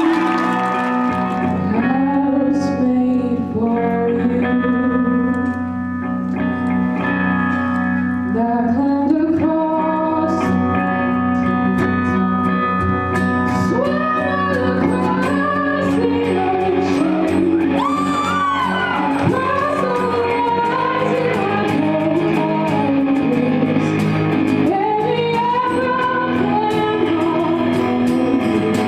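A woman singing live with guitar accompaniment: her acoustic guitar strummed alongside an electric guitar.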